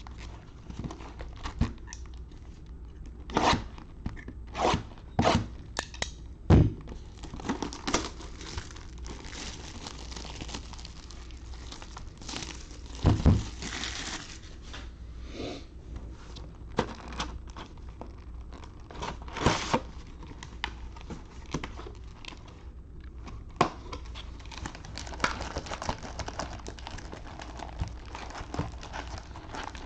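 Plastic wrapping being torn and crinkled while a sealed box of football trading cards is opened, with scattered sharp taps and knocks of handling.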